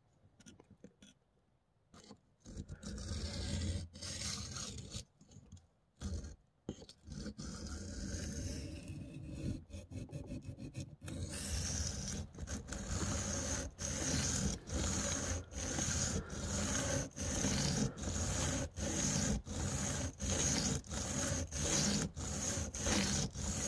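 Steel knife blade scraping back and forth across a wet sharpening stone in freehand strokes. It starts about two seconds in, with uneven strokes at first, then settles into a steady rhythm of about three strokes every two seconds.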